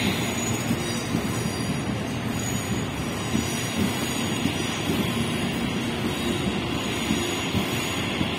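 CPTM electric multiple-unit commuter train running past close by, a steady noise of wheels on the rails with irregular clicks and faint squeal.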